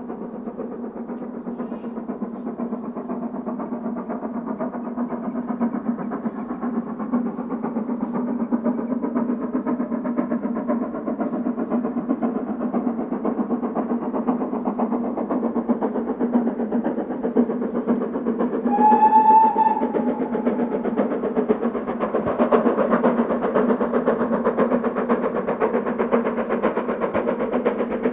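GWR Castle-class 4-6-0 steam locomotive 7029 Clun Castle working a train and drawing nearer, its running growing louder. One short whistle blast comes about two-thirds of the way through.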